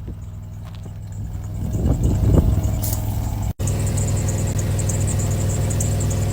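Plymouth Voyager minivan's engine running with a steady low hum. After a brief dropout about three and a half seconds in, it is louder with an added hiss.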